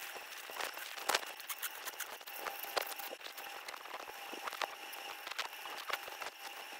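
A dental scaler working on a poodle's teeth during a scaling (tartar removal). There is a steady faint whine and a hiss of water spray, with frequent sharp clicks and scrapes as the metal tip meets the teeth.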